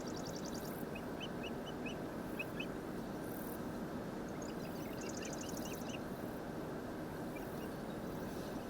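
Birds calling: two runs of short, high chirps, one early and one about five seconds in, each with a fast, higher ticking trill, over a steady background rush.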